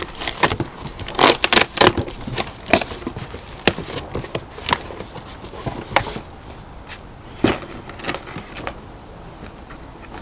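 Handling of plastic truck headlight assemblies: irregular clicks, knocks and rustling, busiest in the first few seconds and thinning out later.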